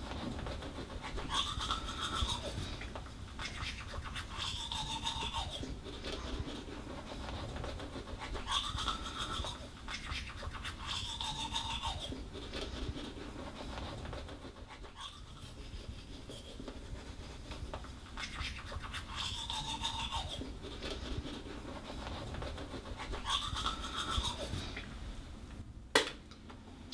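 Teeth being brushed: a continuous, fast scratchy scrubbing, with a squeaky tone that rises and falls recurring every few seconds. A single sharp click comes near the end.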